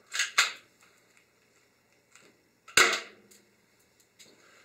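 Spring-powered Crosman Stinger 311 airsoft pistol: two quick sharp clacks just after the start, then one louder shot just under three seconds in, the BB punching through a cardboard box.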